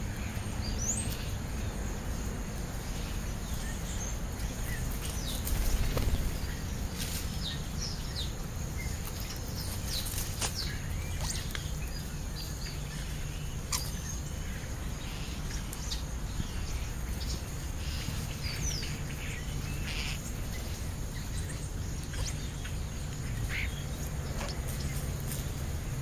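A flock of European starlings calling at a food pile: scattered short whistles, squeaks and chatter, some sliding up and some down in pitch. Under them runs a steady low outdoor rumble that swells briefly and louder about six seconds in.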